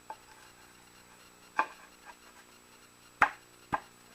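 Wooden workpieces being handled: four short, sharp knocks of wood on wood, the loudest about three seconds in, as a raised panel is fitted and moved about.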